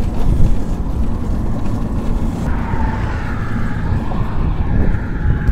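Motor traffic rumbling steadily past on the road bridge. A fainter higher whine joins about halfway through.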